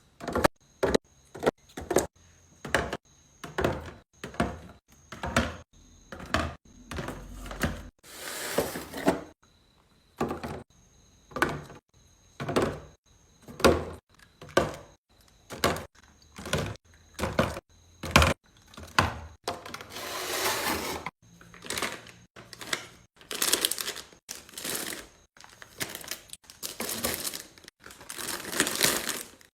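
Groceries and containers being set into a refrigerator one after another: a run of separate clicks and knocks as items go onto shelves, with a few longer stretches of rustling.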